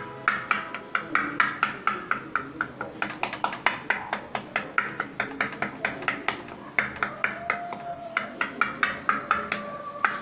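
A knife point pricking pizza dough spread on a tawa: a quick run of sharp taps, about four or five a second, as the tip goes through the dough and strikes the pan beneath.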